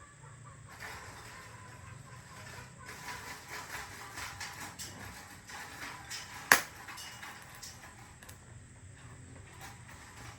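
Irregular clicking and scraping of tools and metal parts being handled during motorcycle frame repair, with one sharp knock about six and a half seconds in, over a low steady hum.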